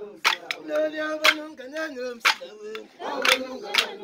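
A group singing together in held, gliding notes, cut through by loud sharp claps about six times at uneven intervals.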